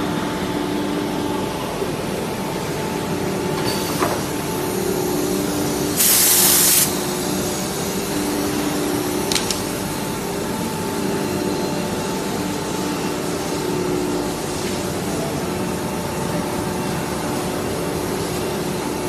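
SUDIAO 4-axis ATC CNC router running, a steady machine hum with several held tones over a hiss. A short, loud burst of hissing comes about six seconds in, and a couple of sharp clicks are heard.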